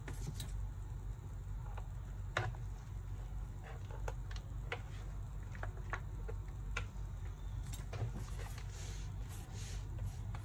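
Scattered small clicks and taps of a screwdriver and small parts being handled on a laptop's plastic case during disassembly, over a steady low hum.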